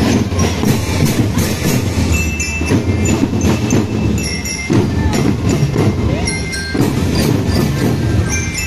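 Marching drum band playing: marching drums beating a steady, busy rhythm with hand cymbals clashing, and short high bell-lyre notes ringing over the drumming at a few points.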